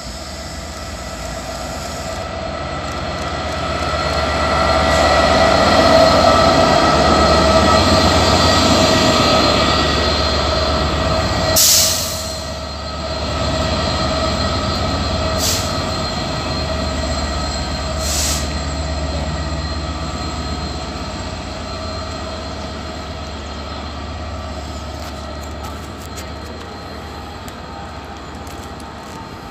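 A locomotive-hauled train, an LNER Class 91 and its Mark 4 coaches dragged by another locomotive, runs in and passes close by. It grows loudest as the locomotive comes past, then settles into a long steady rumble of the coaches going by. A steady high whine carries through it, and there are three sharp cracks about twelve, fifteen and eighteen seconds in.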